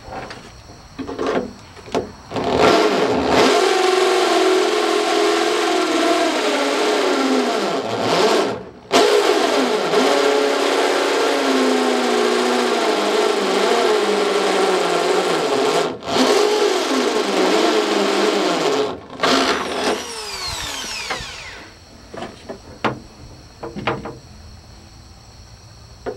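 Corded DeWalt electric drill running under load as it bores and enlarges a hole through a sheet-steel truck door, with two brief stops, then spinning down with a falling whine. Light clicks of handling follow near the end.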